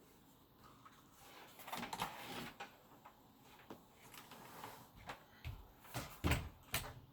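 Typing on a mechanical keyboard: irregular keystroke clicks and clacks, bunched together about two seconds in, with a louder, deeper keystroke thump a little after six seconds.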